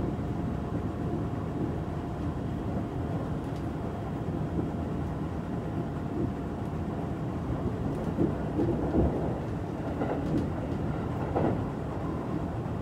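Cabin running noise of a Kintetsu 22000 series limited express train: a steady low rumble of wheels on rail, with a few louder knocks in the second half.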